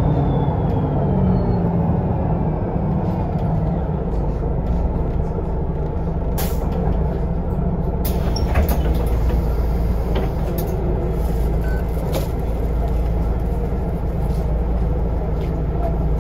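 Solaris Urbino 18 articulated city bus heard from inside the cabin while under way: a steady low rumble of drive and road noise. Several sharp clicks and rattles from the interior fittings come through at irregular moments.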